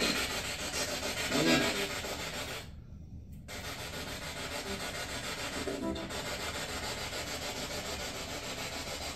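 Spirit box in SB7 mode sweeping rapidly through radio stations, giving a continuous choppy hiss of radio static. It cuts out briefly about three seconds in.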